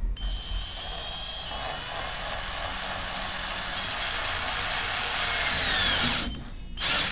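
Trumax 12-volt cordless drill-driver running steadily, driving a Phillips-head screw into a block of wood; its whine sinks in pitch and stops about six seconds in, followed by a brief second burst near the end.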